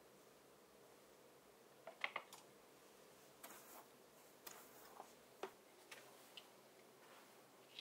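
A scatter of light clicks and taps over faint room tone, the loudest pair about two seconds in. A wooden bamboo hairbrush is being lifted off a glass-topped dresser and handled.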